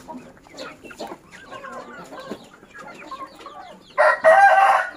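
Chickens clucking with many short, soft calls, then a rooster crows loudly about four seconds in.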